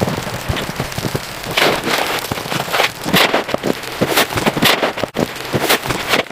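Stormy weather ambience: a continuous rushing noise broken by irregular crackling bursts, like wind-driven rain or sleet.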